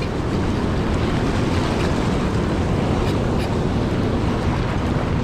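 Fast river water rushing through rapids below a dam, a steady loud rush, with wind buffeting the microphone.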